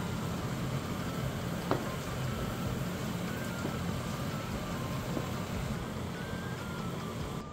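Pot of water at a rolling boil on a stovetop, a steady bubbling noise, with one light knock about two seconds in.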